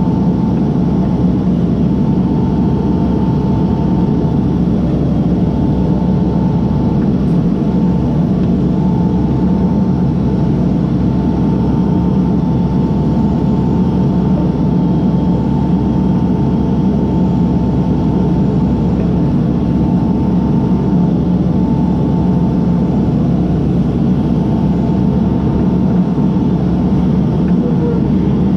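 Case backhoe's diesel engine running steadily, with a steady high whine over its low rumble.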